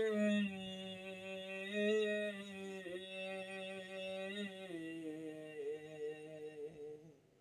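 A man's unaccompanied voice holding one long drawn-out note of a manqabat recitation, stepping down in pitch about halfway through and fading out near the end.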